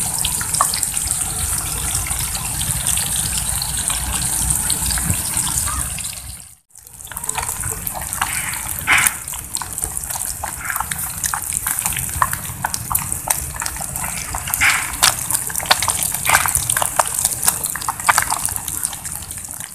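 Wader fish and shrimp deep-frying in hot oil in a small pot: a steady sizzle, broken by a brief dropout about six and a half seconds in, then sizzling with many sharp crackles and pops.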